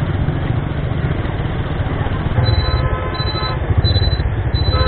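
Motorcycle engine running as the bike rides along. From about halfway through, a high electronic beep repeats on and off about once every 0.7 seconds.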